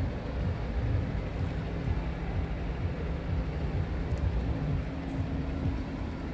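Scania R tractor unit's diesel engine idling steadily, a constant low hum with an irregular low rumble underneath.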